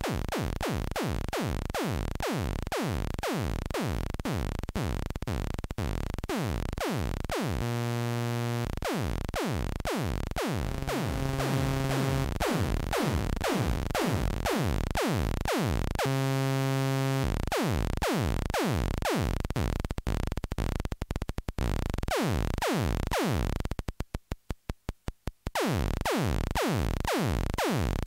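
MFOS Sound Lab Mini-Synth playing a stream of repeated electronic notes, each a quick falling sweep, shaped by its AR envelope generator as the attack and release settings are changed. The repeats grow faster. Twice a steady held tone sounds for about a second, and near the end the notes shrink to rapid short clicks before the sweeps return.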